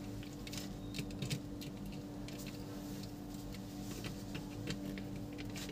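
Scattered light clicks and scrapes of a screwdriver and wire being worked into a modular switch's screw terminal, over a steady low hum.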